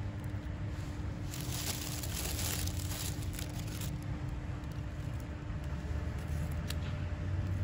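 Rustling and crinkling of plastic seedling trays and a plastic bag being handled, strongest about one to four seconds in and again briefly near the end, over a low steady outdoor rumble.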